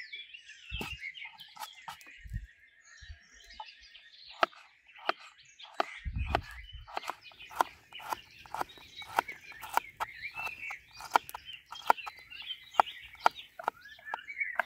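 Knife slicing garlic cloves against an upturned wooden bowl: scattered small clicks at first, then from about halfway through a steady run of sharp knocks of the blade on the wood, about two to three a second. Birds sing throughout.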